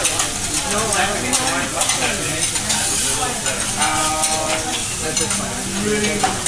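Steaks sizzling on a hot steel teppanyaki griddle, with a metal spatula scraping and tapping across the plate in quick, irregular strokes.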